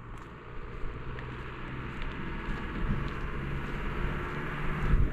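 A car approaching on the road, its tyre and engine noise growing steadily louder.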